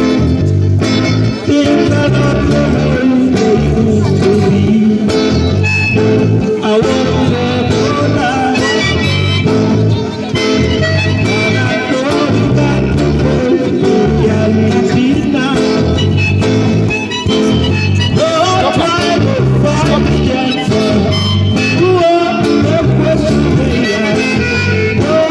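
Live acoustic reggae band playing an instrumental passage: a harmonica carries the melody over acoustic guitar and electric bass.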